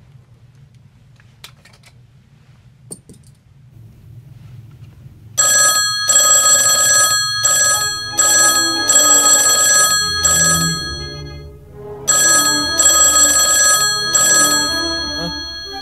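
Telephone ringing: two long rings, the first starting about five seconds in and the second after a pause of about two seconds, preceded by a couple of faint clicks.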